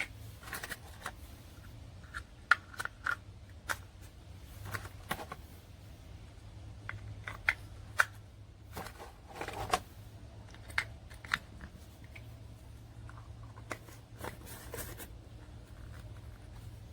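Scattered sharp clicks and taps with a few brief rustles, as of small plastic items and packaging being handled, over a steady low hum.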